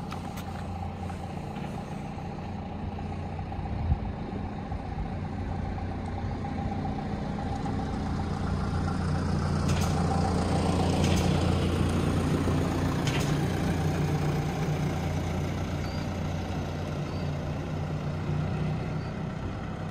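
A truck's engine runs with a steady low hum, growing louder to a peak around the middle and then easing off. There is a single sharp knock about four seconds in and a few short clicks near the loudest part.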